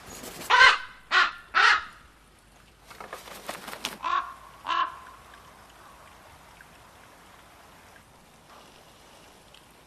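Common ravens calling: three loud calls in quick succession, then a stretch of scratchy noise and two more calls about four seconds in.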